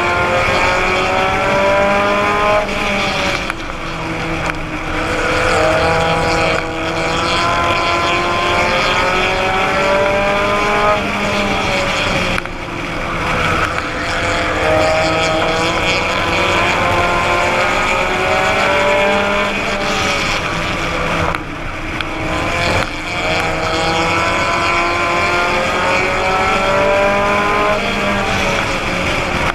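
Race car engine heard onboard, under hard load around a short oval. The revs climb along each straight and drop off sharply as the driver lifts for the turns, three times, roughly every nine seconds, over steady wind and road noise.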